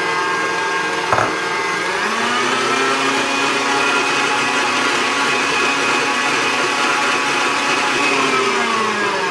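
Electric mixer beating egg into creamed butter and sugar: a click about a second in, then the motor speeds up and runs steadily at high speed before winding down near the end as it is switched off.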